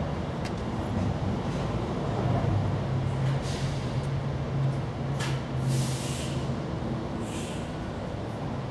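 Steady low mechanical rumble, with several short hissing sounds over it in the middle of the stretch.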